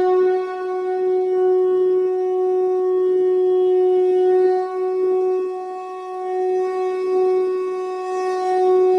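Conch shell (shankha) blown in one long, steady note that swells and dips in loudness.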